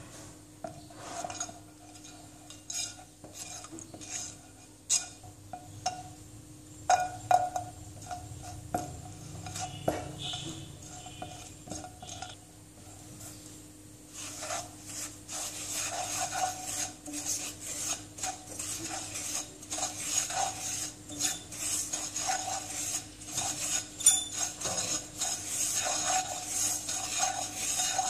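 A spatula stirring and scraping dry, grainy powder around a non-stick pan. There are scattered taps and scrapes at first, then quick, continuous back-and-forth scraping strokes from about halfway on.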